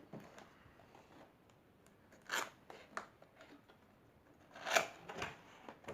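A cardboard keyboard box being opened by hand: short scrapes and rustles of cardboard and packaging, the two loudest about two seconds in and near five seconds.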